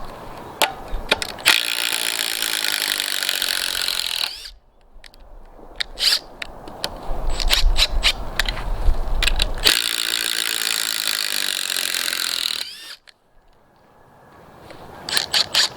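Two cordless impact drivers, a Ridgid Octane and a Makita TD171, hammering as they drive screws into wood. There are two runs of about three seconds each, and each ends with the motors winding down. Scattered clicks are heard between the runs and near the end.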